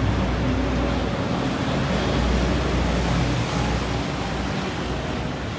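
BTS Skytrain car running along the elevated line, heard from inside: a steady low rumble under an even rushing noise.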